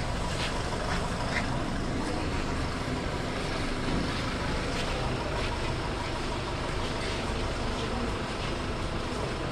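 Steady din of a vehicle engine running, mixed with the murmur and cries of a crowd's voices.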